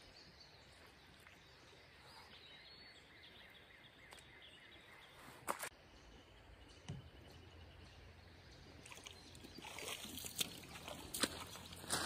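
Faint outdoor background at a creek's edge, with two single sharp clicks near the middle. Rustling and knocking handling noise builds up toward the end.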